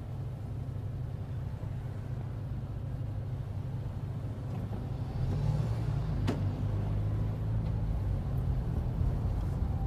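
Renault Clio 16V heard from inside its cabin, a steady low engine and traffic rumble while it creeps in a queue. The rumble grows louder about five seconds in, and there is a single click about a second later.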